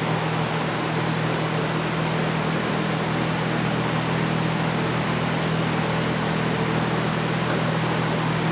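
Steady whir of a running fan: an even hiss with a low hum underneath that does not change.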